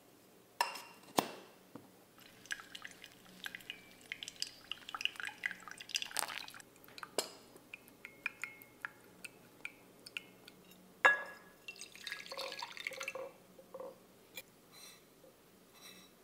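Pour-over coffee brewing: a run of small clicks, taps and drips as coffee trickles into a glass server, with one sharp knock, the loudest sound, about two-thirds of the way through.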